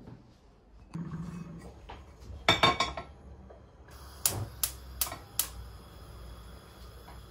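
Small hard objects being handled indoors: a short clatter about two and a half seconds in, then four sharp clicks in quick succession.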